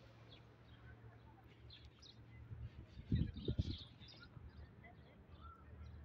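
Small birds chirping and tweeting in short scattered calls over a low, steady outdoor hum, with a brief cluster of low thuds about halfway through.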